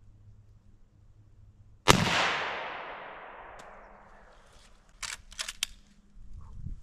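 A single shot from a Henry H001M lever-action .22 WMR rifle, its echo dying away over about two seconds. About three seconds later comes a quick run of four or five sharp clicks.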